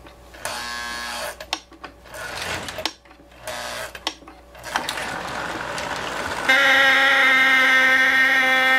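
1957 Santa Fe war bonnet model diesel locomotive's built-in electric horn, which he calls its whistle. It sounds steady and buzzy, starting suddenly about six and a half seconds in and holding to the end. Before it come scattered clicks and short faint tones as the train is started up.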